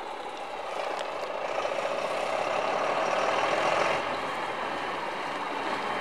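Valtra 8550 tractor's six-cylinder turbo diesel running hard as the tractor approaches, blowing black smoke under heavy throttle; it grows louder until about four seconds in, then eases a little.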